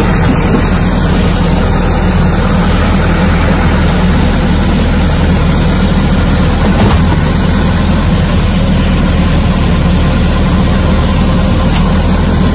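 The Cummins B3.9 four-cylinder diesel of a LiuGong 915E crawler excavator running steadily, close up, while the boom and arm are worked.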